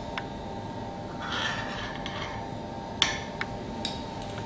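Light clinks and a short scrape of kitchen utensils against crockery, with a sharper clink about three seconds in, over a steady hum.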